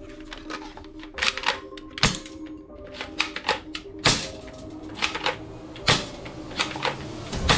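Hard plastic clicks and knocks from a toy sniper rifle being handled, irregular, the sharpest about two, four and six seconds in. Quiet background music runs underneath.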